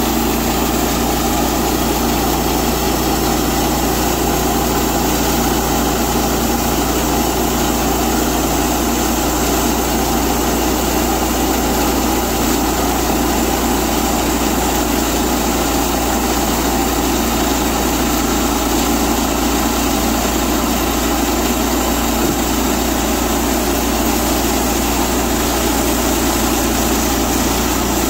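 Woodland Mills HM122 sawmill's gas engine running steadily as its bandsaw blade cuts through a pecan log.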